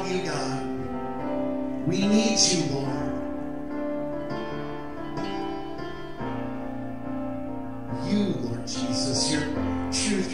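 Yamaha electric keyboard playing slow, sustained chords, with a man's voice singing a few short phrases over it, about two seconds in and again near the end.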